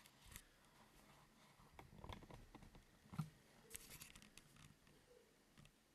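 Faint handling noise: scattered light clicks and rustles, with a sharper tap about three seconds in and a short run of clicks just after.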